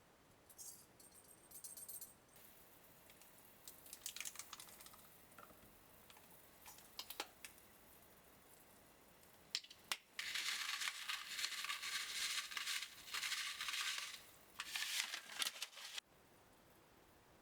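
Kitchen cooking and prep sounds: a short rattle, scattered clicks and handling noises, then a dense hissing rush lasting about six seconds that stops abruptly.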